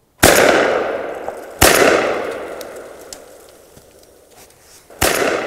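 Three shotgun shots fired up into a squirrel's dray: two about a second and a half apart, then a third near the end. Each report is followed by a long rolling echo through the woodland.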